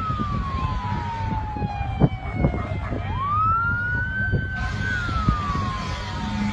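Emergency vehicle siren wailing: the tone falls slowly, sweeps sharply back up about three seconds in, holds briefly and falls again. Under it runs a low rumble, broken by a couple of sharp knocks about two seconds in.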